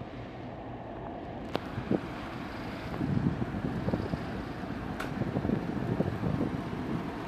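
Class 44 diesel locomotive approaching at low speed, its engine rumble getting louder about three seconds in, with a few sharp clicks and wind on the microphone.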